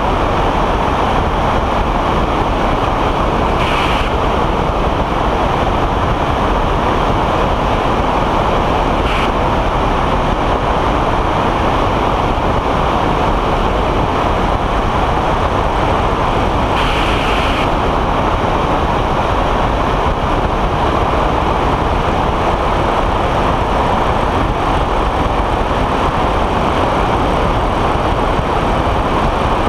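Ultralight weight-shift trike in cruising flight: steady engine and pusher-propeller drone mixed with wind rushing over the wing-mounted camera's microphone.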